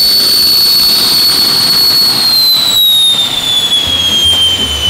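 Jet engine mounted on a Renault Twingo, running loud with a rushing noise and a high turbine whine. The whine holds steady, then falls in pitch from about two seconds in as the engine spools down.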